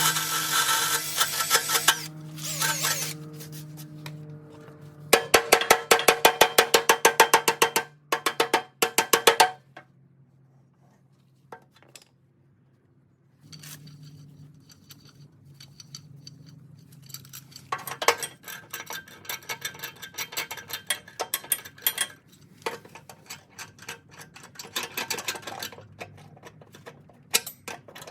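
Power tool work on metal: a tool runs briefly at first, then about four seconds of rapid, evenly spaced hammering clicks, followed after a pause by scattered clinking of metal tools and parts.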